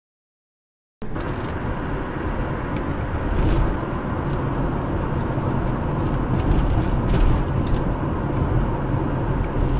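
Digital silence for about a second, then steady road and engine noise heard from inside a moving car, as picked up by a dashboard camera, with a few faint ticks.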